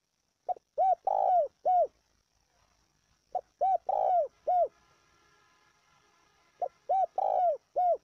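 Spotted dove cooing: three phrases about three seconds apart, each a short note, a quick note, a longer note and a final note.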